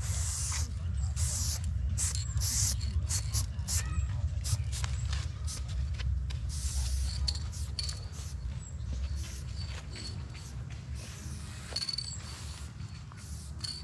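Aerosol spray-paint can hissing in repeated bursts: several longer blasts in the first few seconds, then shorter, quicker ones, over a steady low rumble.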